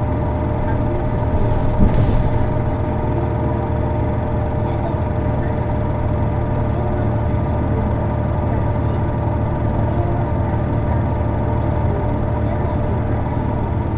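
Isuzu Erga city bus's six-cylinder diesel engine running steadily under way, heard from inside the passenger cabin as a continuous low drone with steady higher tones over it. This bus's engine is known for a distinctive abnormal noise. One brief thump about two seconds in.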